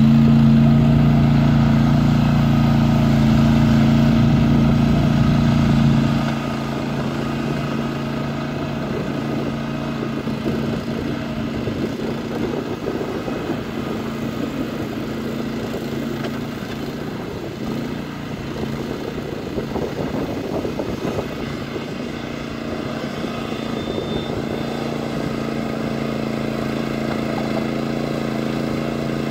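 Tracmaster 740 two-wheel tractor engine running steadily while its 75 cm power harrow works the soil. About six seconds in the sound drops in level and then holds steady.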